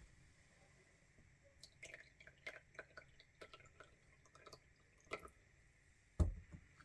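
Faint drips and light clicks of teaware during tea brewing, then one louder knock just after six seconds in.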